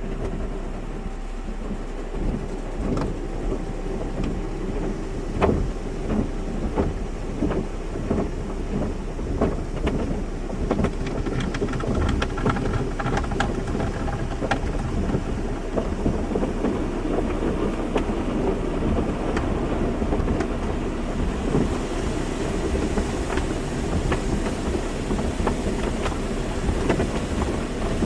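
Car wash running: water spraying and spattering on a car in dense, irregular patters over a steady low rumble and faint machinery hum.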